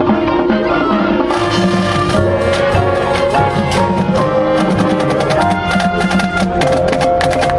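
High school marching band playing: held brass and woodwind chords over drums, with quick percussion strokes growing denser in the second half.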